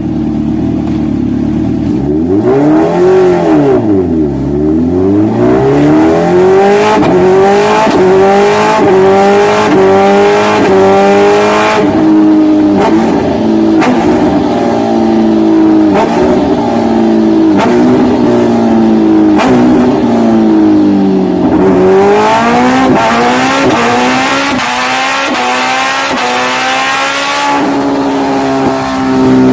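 Benelli TNT 300 parallel-twin engine accelerating hard through the gears: the revs climb and drop back at each upshift, many times in a row. About twenty seconds in the revs fall away, then climb again and hold at a steady high pitch near the end.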